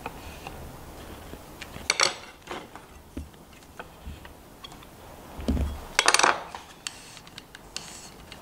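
Metal tools clinking and knocking against a wooden frame as steel bar clamps are shifted and a steel square is set against the joint, with a low thump and then the loudest clatter about six seconds in.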